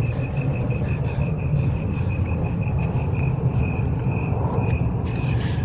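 Outdoor evening ambience: a steady low rumble with a thin, high chirp repeating about five times a second.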